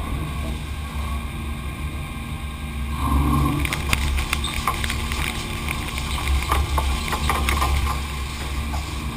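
Mazak vertical machining centre boring holes at high spindle speed: a steady machine hum and low rumble. From about three seconds in, rapid crackling and ticking of chips and coolant spray hitting the enclosure.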